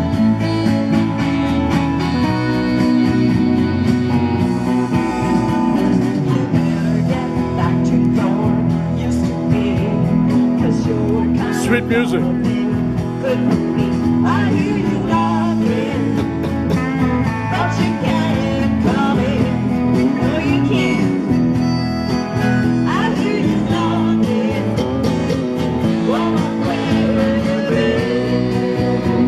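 Small live band playing a song together: an electric guitar through an amplifier, an electronic keyboard and an acoustic guitar.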